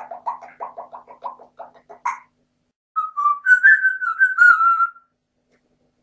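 African grey parrot calling: a quick run of short repeated notes at about six a second ending in a sharp rising note, then after a pause a wavering whistle lasting about two seconds with a few clicks through it.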